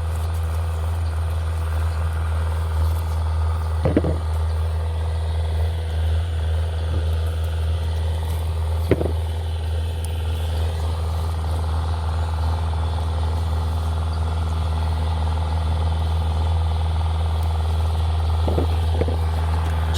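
A steady low mechanical hum, like a running motor, with two brief short sounds about four and nine seconds in.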